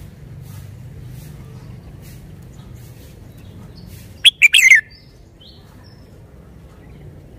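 Red-whiskered bulbul singing one short, loud phrase of quick, high warbling notes about four seconds in, followed by a few faint high notes.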